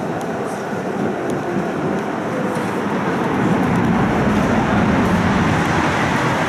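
Electric tram running, heard from inside the car: a steady rumble of wheels and running gear on the rails that grows louder about halfway through as it passes under a concrete overpass.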